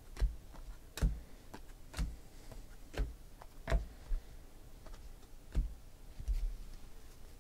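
Football trading cards clicking against each other as they are flipped through one at a time, a sharp click roughly once a second.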